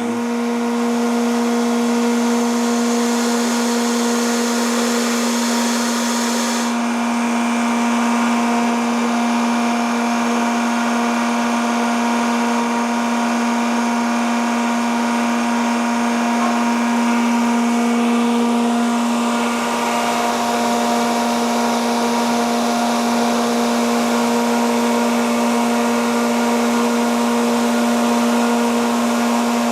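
Sullivan Palatek 30D7 30 hp air-cooled rotary screw air compressor running with a steady hum and hiss; the high hissing part of the sound drops away about seven seconds in.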